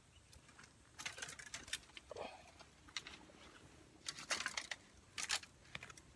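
Dry bamboo stems and leaves rustling and crackling in irregular short bursts as a person shifts and crawls into position inside a bamboo thicket.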